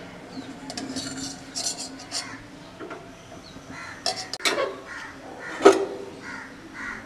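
Steel lid and cookware handled over a pan of curry: scattered metallic clinks and knocks, with one sharp clank near the end the loudest.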